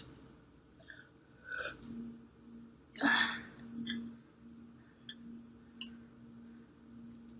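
A person's sharp breaths while eating extra-spicy fire noodles. There is a short breath about one and a half seconds in and a louder, sudden one about three seconds in, followed by a few small mouth clicks.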